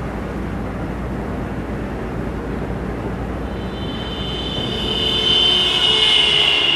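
A passing vehicle's steady low rumble, joined by a high, slightly falling whine that swells in about halfway through and is loudest near the end.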